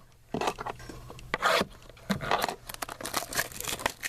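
Trading-card packaging being torn and crumpled: irregular crinkling and tearing with a few louder rips.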